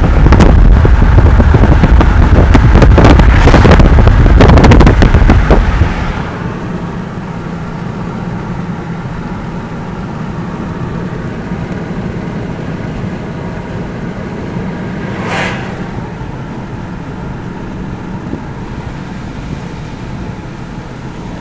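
Wind buffeting the microphone at a car's side window, very loud and crackly, cutting off about six seconds in. After that comes steady road and engine noise inside the car's cabin, with one brief whoosh about fifteen seconds in.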